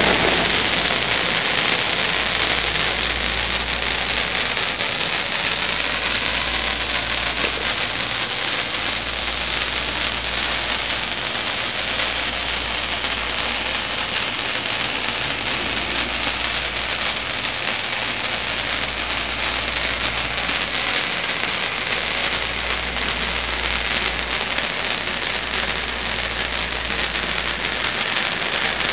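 A 1-metre cold spark fountain burning with a steady, loud hiss of spraying sparks.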